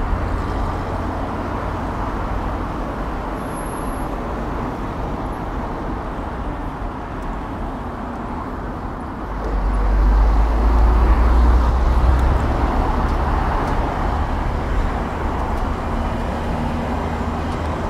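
Road traffic noise from cars and trucks, with wind rushing over the microphone of a road bike's camera as it rides between lanes. A deeper, louder rumble comes in about halfway through and lasts a few seconds.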